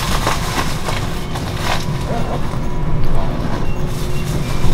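Diesel railcar running with a steady low rumble, with a few light clicks and knocks over it.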